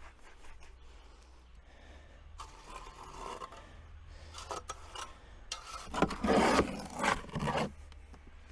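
Shovel scraping and turning a gritty hand mix of sand, pea shingle and cement in a wheelbarrow, in rough strokes, loudest about six to seven and a half seconds in. A low steady hum runs underneath.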